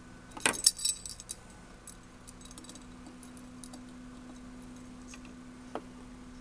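Light metal clicks and clinks as a stylus-pressure gauge is set against a record changer's tonearm and cartridge, clustered about half a second to a second and a half in, with one faint click near the end. A steady low hum runs underneath.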